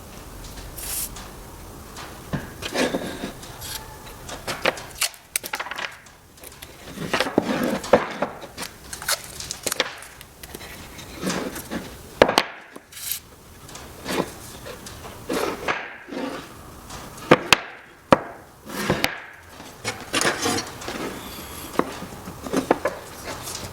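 Irregular knocks, taps and clatter of oak pieces being handled and worked by hand, some strikes sharper and louder than others.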